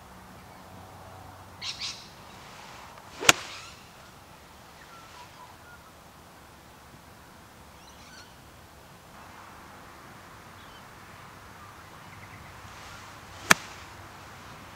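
Golf iron striking a golf ball off the fairway twice, about ten seconds apart: a sharp click each time, the first a few seconds in and the second near the end.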